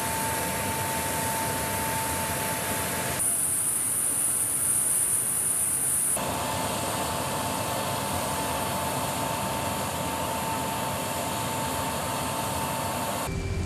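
Steady aircraft turbine noise on a flight line: a constant whine over a loud, hissing rush. The sound changes abruptly about three seconds in to a brighter hiss without the whine, then returns about six seconds in.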